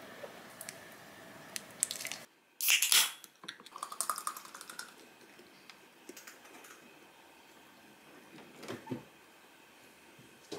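Chopsticks clicking lightly on a ceramic plate. After that, beer is poured from a can into a glass: a loud hissing rush as the pour begins, then splashing and fizzing that trails off.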